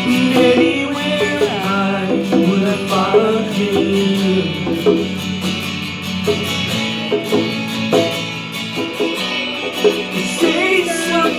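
Live acoustic guitar and a pair of conga drums playing together, with a man's voice singing in places.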